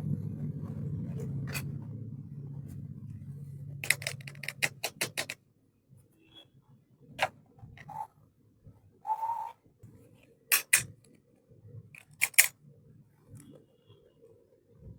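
Small plastic toy kitchen pieces handled and set down: a low rubbing rumble for the first five seconds or so, a quick run of sharp clicks about four seconds in, then scattered single clicks and taps.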